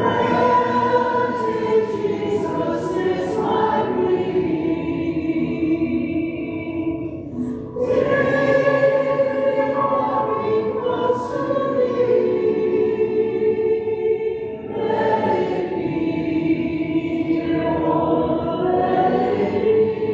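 A group of voices singing a hymn together, in long held phrases with short breaks about every seven seconds.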